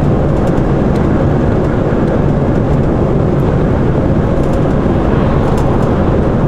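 Heavy goods vehicle's engine and road noise: a steady, loud, low drone.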